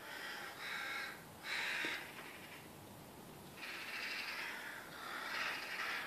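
Crow-family birds giving harsh, raspy caws: a few short calls at the start, another about a second and a half in, then a longer run of calls from about halfway. These are alarm calls from a flock mobbing a cat in the tree.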